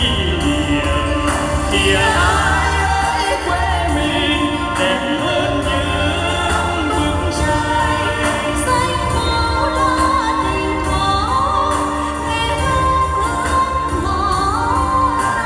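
Vietnamese song sung on microphone over amplified backing music, with a steady beat and a constant bass line.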